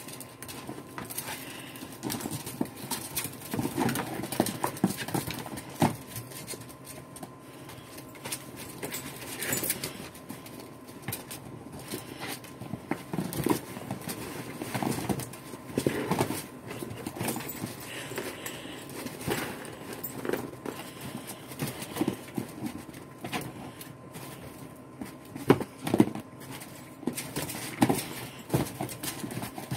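Ferrets scrabbling and digging in a plastic wading pool heaped with snow: irregular scratches, knocks on the plastic and soft crunching of snow, with brief clusters of louder knocks.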